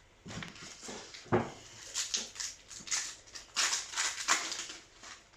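Foil booster pack of trading cards being handled and torn open, crinkling in irregular bursts, with a sharp crackle about a second in.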